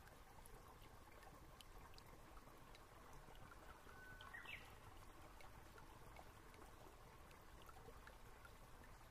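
Near silence: a faint steady hiss of room tone, with one brief faint rising chirp about four seconds in.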